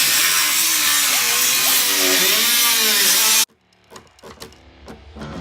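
A power tool running loudly at high speed, its pitch dipping and rising as it works, cut off abruptly about three and a half seconds in. Scattered light clicks and knocks follow, with music beginning to fade in near the end.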